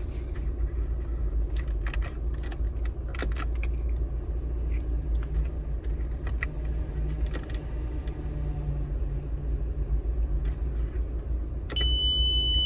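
Buttons on a Honda Jazz car radio clicking as the anti-theft code is keyed in, then one steady high beep near the end as the code is accepted. A steady low rumble runs underneath.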